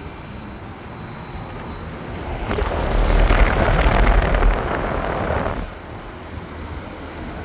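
Goodman GSZ14 heat pump's outdoor unit running steadily in cooling mode, compressor and condenser fan humming. From about two seconds in, a louder rushing sound with a deep rumble lasts about three seconds, then falls back to the steady hum.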